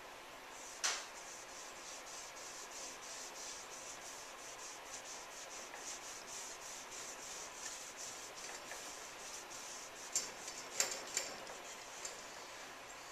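Cloth rag rubbing wood stain into a bare wooden crossbow stock in quick, even back-and-forth strokes. A sharp tap comes about a second in and a few more near the end.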